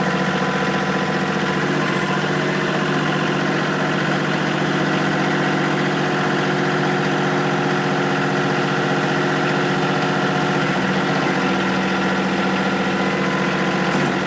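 Kioti CK2610 compact tractor's three-cylinder diesel engine running steadily with the RPMs raised, its tone shifting slightly about eleven seconds in.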